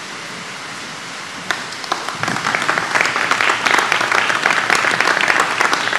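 Steady hiss of room noise, then scattered claps about a second and a half in that swell into steady applause from a group of seated people.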